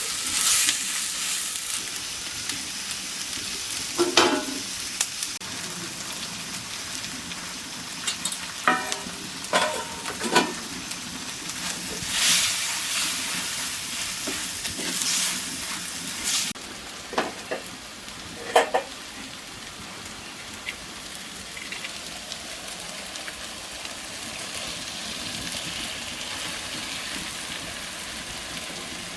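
Goat intestine frying in a pan: a steady sizzle, with a spatula knocking and scraping against the pan every few seconds as it is stirred. The sizzle drops quieter a little past halfway.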